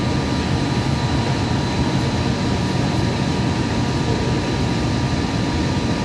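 Interior noise of a Hudson-Bergen Light Rail car running at speed: a steady low rumble of wheels on rails and running gear, with thin steady whines above it.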